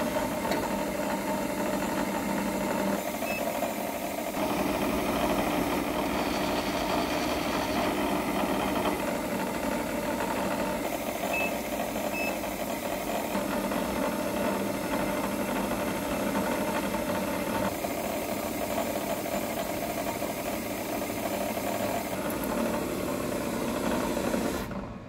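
Hafco BM-63VE milling machine running steadily with its spindle turning an edge finder. Two short high beeps from the digital readout keypad about halfway through.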